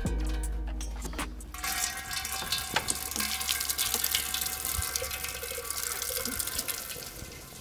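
Engine coolant pouring from a disconnected radiator hose and splashing into a drain funnel. The splashing stream comes in about a second and a half in and then runs on steadily.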